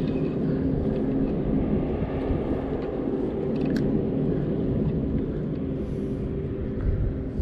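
Steady low drone of a boat's engine, an even hum with a low rumble underneath and some wind on the microphone.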